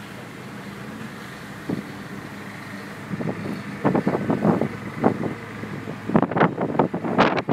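Wheel loader's diesel engine running steadily while it drags a screed beam over a sand bed. From about three seconds in, irregular rough crackling bursts come in, getting denser and louder near the end.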